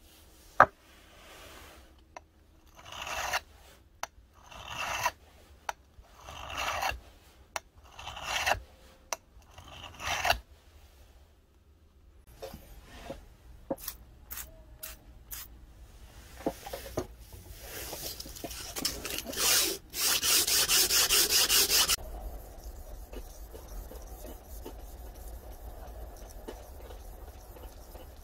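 Hand-working a steel knife blade: about six slow scraping strokes roughly a second and a half apart, then scattered clicks and knocks, a couple of seconds of loud, fast scraping, and then steady, quieter rubbing as a hand-held abrasive block is worked along the blade.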